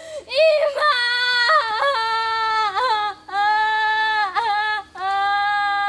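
A high human voice wailing in long held cries, like acted weeping, each one sagging down in pitch at its end before a short breath.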